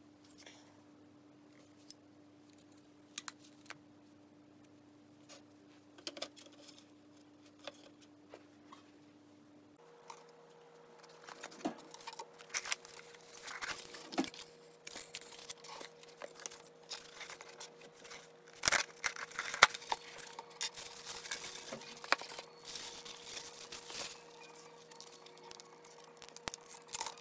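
Hands unpacking phone-repair parts: a cardboard box, clear plastic trays and bubble wrap rustling and crinkling, with clicks and taps. It is mostly quiet with a few light taps for the first ten seconds, then the handling gets busier and louder. A faint steady hum sits underneath.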